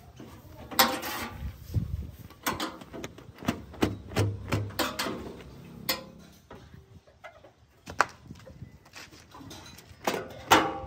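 Irregular knocks and rustling: a cloth being wiped and flapped over a tractor's bonnet.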